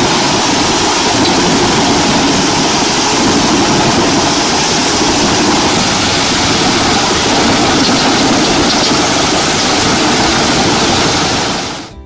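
Truck-mounted wood chipper running under load as a crane feeds whole logs and branches into it: a loud, steady mixture of engine and chipping noise that fades out near the end.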